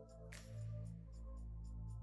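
Soft background music: held low notes with a light, quick ticking beat, and a new chord coming in about a third of a second in.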